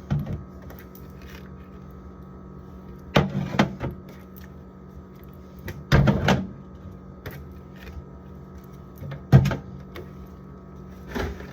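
Condiment bottles and jars being set down and shuffled on refrigerator shelves: short knocks and clatters every two to three seconds over a steady low hum.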